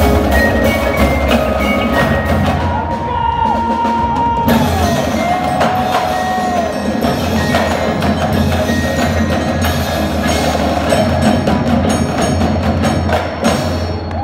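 Indoor drumline and front ensemble playing: marimbas and other mallet keyboards ring over drums, with a steady low bass line and held, sliding tones above.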